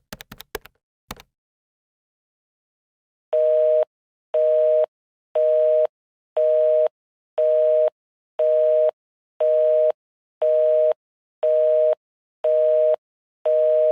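A few sharp telephone key clicks, then a busy signal: a two-tone beep repeating about once a second, half a second on and half a second off, eleven times.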